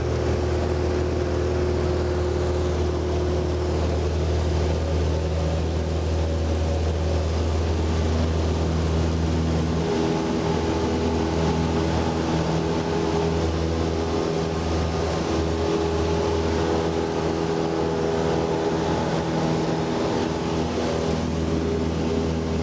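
Cessna 172's piston engine and propeller running steadily at takeoff power, heard inside the cabin during the takeoff roll and climb-out. The engine's tone shifts slightly about ten seconds in.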